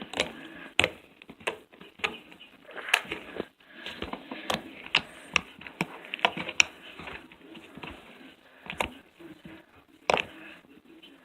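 Fluffy slime being squished, stretched and poked by hand, giving irregular sticky clicks and small pops.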